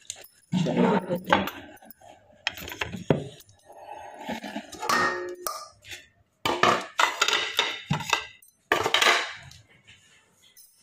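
Stainless-steel kitchen bowls and plates clattering and clinking as they are handled and set down, in a series of irregular bursts, with a brief metallic ring about halfway through.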